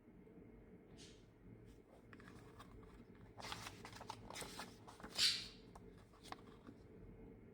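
Pages of a hardback book being turned and handled: soft paper rustling and small taps, with one louder swish of a page turning about five seconds in.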